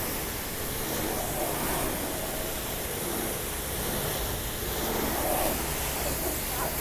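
Pressure-washer lance spraying a jet of water onto an SUV's rear wheel, bumper and tailgate: a steady hiss of spray.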